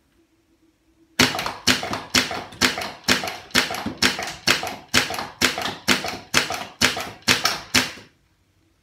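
3D-printed HPA Nerf bullpup blaster with a Super Core, firing fifteen ACC foam darts semi-automatically, about two shots a second. The shots start about a second in and stop near the end.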